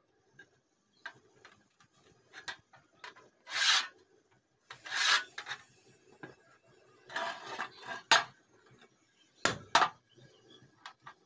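Metal scraping on thin steel strip in several short, separate strokes. Two sharp knocks come near the end, likely metal pieces set down on a wooden block.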